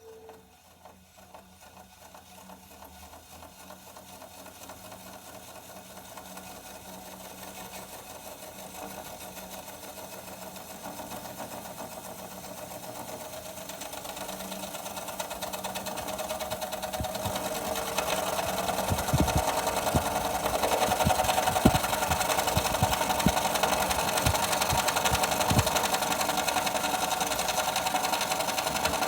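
Panasonic F-YV32LX inverter dehumidifier starting up, its running hum growing steadily louder, with irregular low knocks joining in the second half. This is an abnormal rumbling rattle, which the owner likens to something caught inside.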